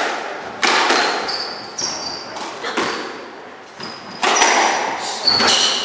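Squash rally: a string of sharp hits as the ball is struck by rackets and smacks off the court walls, ringing in the court, with brief high squeaks of court shoes on the wooden floor.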